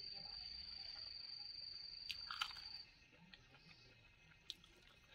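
Quiet eating with the fingers: soft chewing with a few small sharp clicks, loudest about two and a half seconds in. Under it an insect's steady high trill stops about three seconds in.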